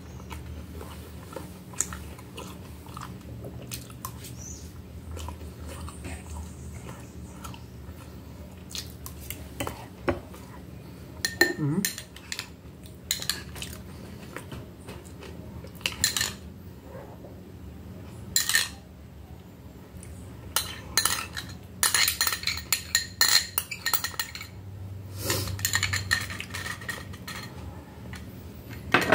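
A metal fork and spoon clinking and scraping against a glass plate and a glass bowl while someone eats, with some chewing between. The clinks come scattered throughout and bunch together near the end.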